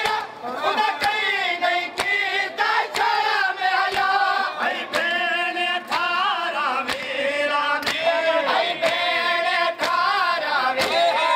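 A group of male mourners chant a noha together, with hands slapping chests in time about once a second (matam).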